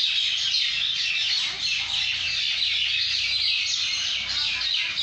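A flock of mynas chattering, many short chirps and squawks overlapping in a dense, continuous din.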